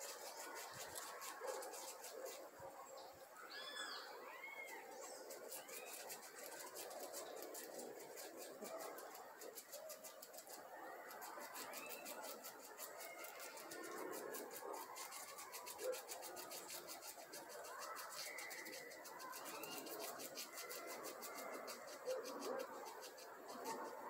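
A squirrel gnawing a small palm nut: a fast run of fine scraping ticks, with birds chirping now and then in the surrounding trees.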